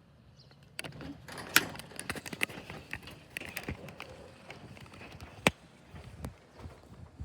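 Handling noises: an irregular run of clicks and knocks, with two sharp, louder clicks about a second and a half in and again about five and a half seconds in.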